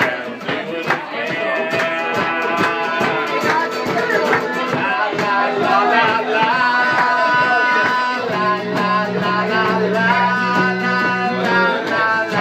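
Band music with guitar over a steady beat.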